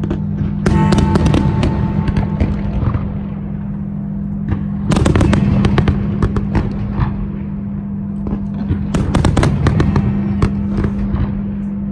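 Fireworks bursting and crackling in rapid clusters: a volley about a second in, another around five seconds, and a dense run around nine to ten seconds.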